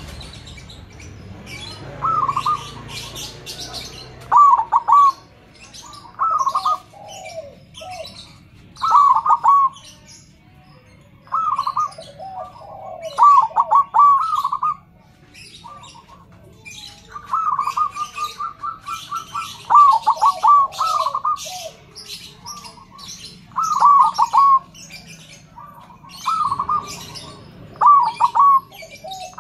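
Zebra doves cooing: short bursts of quick repeated coo notes about every two seconds, answered now and then by a lower-pitched coo. Small birds chirp high and briefly throughout.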